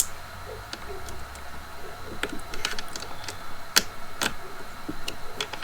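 Irregular light clicks and taps from trimmer parts being handled during assembly, over a faint steady hum.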